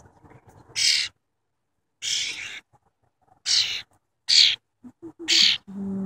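Young cowbird giving five short, harsh, hissy calls, each about half a second long, a second or so apart.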